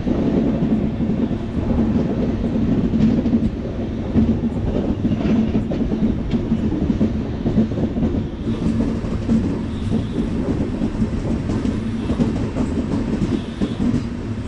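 Express passenger train running at speed, heard from on board: the steady noise of the coach's wheels on the rails.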